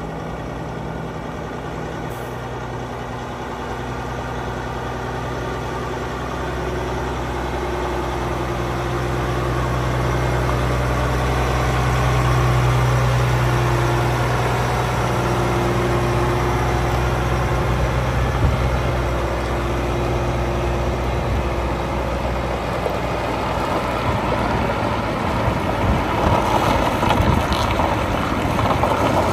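Diesel engine of a Mack prime mover hauling a tanker road train at low speed, a low, steady drone that grows louder as the truck approaches and passes close by, loudest about halfway through. The sound turns rougher and noisier near the end.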